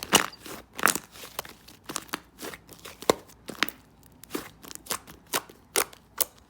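White slime being squeezed and poked by hand, giving a string of sharp, sticky clicks and pops, about two or three a second at an uneven pace.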